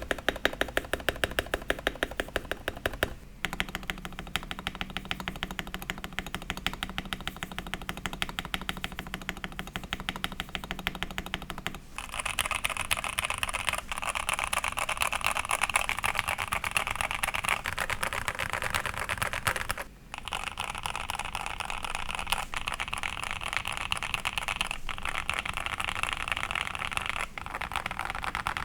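Fast typing on a modded Rexus Daxa M64 Classic mechanical keyboard with SP-Star Yanyu switches, PBT Corgi keycaps and an O-ring gasket mount: a dense, continuous run of key clacks. It breaks off briefly about three, twelve and twenty seconds in, and from about twelve seconds in the clacks sound brighter.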